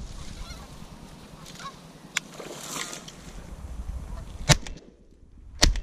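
Geese honking, then two shotgun shots a little over a second apart from a Browning A5 semi-automatic shotgun fired at the passing geese.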